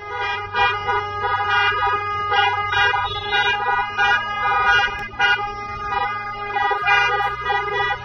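Music: sustained organ-like chords over a bass line that changes note twice.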